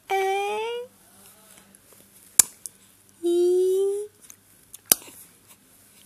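Young baby cooing: two drawn-out, high-pitched vocal sounds, each under a second and rising in pitch, one at the start and one about three seconds in. Two short sharp clicks come between and after them.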